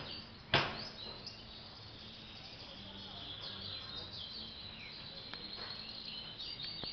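Caged green-winged saltators (trinca-ferro) warming up after their moult, giving short, quick descending chirps, with a steady high trill through the middle. A single sharp knock sounds about half a second in.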